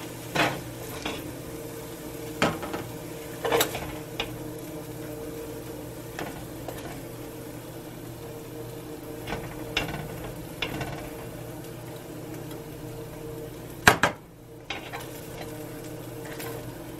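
A spoon scraping and knocking as cooked vegan scrambled egg is scooped from a frying pan into a plastic bowl. The knocks are scattered, with the loudest about 14 seconds in, over a steady low hum.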